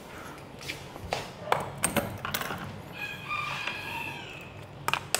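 Scattered light clicks and knocks, and about three seconds in a faint, drawn-out call lasting about a second and a half.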